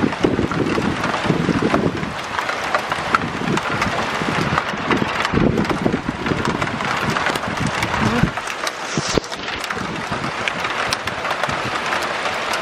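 Rain shower falling, a steady hiss with scattered drop ticks. Wind rumbles on the microphone in gusts through the first eight seconds or so, then eases.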